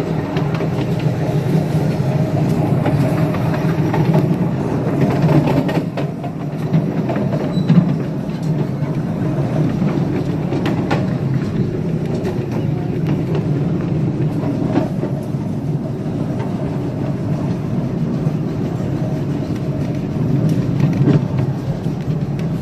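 A small-gauge live-steam train on the move, heard from the riding cars: a steady rolling rumble of wheels on the track with a few sharp clicks over rail joints.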